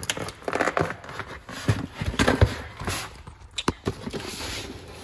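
Cardboard shipping box being pulled open by hand: tape and cardboard flaps tearing and rustling in uneven bursts, with one sharp click near the end.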